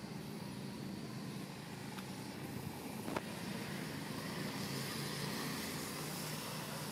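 A steady low engine hum, with a single sharp click about three seconds in.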